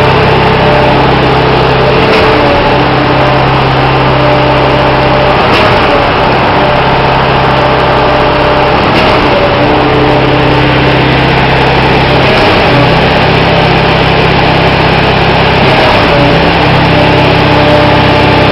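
Everdigm ETP1017 stationary concrete pump running steadily and loudly, its engine holding an even note, with a faint regular change about every three and a half seconds.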